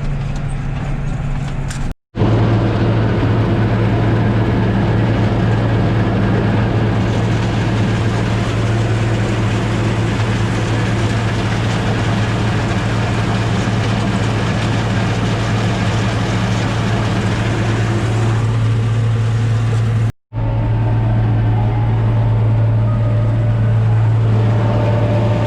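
Diesel farm tractor engine running steadily with a deep, even hum, a rushing noise over it for most of the middle. The sound breaks off abruptly twice, about two seconds in and again about five seconds before the end.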